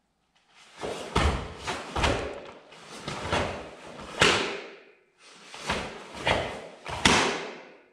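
Karate kata Heian Yodan performed at speed: a quick series of thuds and swishes from stepping, stamping feet and fast strikes and blocks, about ten in all, with a short pause about five seconds in.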